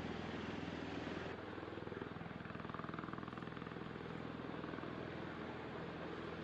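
V-22 Osprey tiltrotor's turboshaft engines and proprotors running, a steady drone with a low pulsing hum. The higher hiss drops away about a second in.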